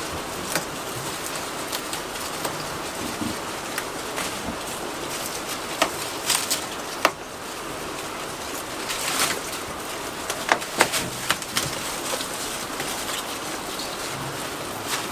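Steady hiss of rain with sharp rustles, snaps and crunches from goats stripping and chewing leafy branches, bunched together in the middle and about two thirds of the way in.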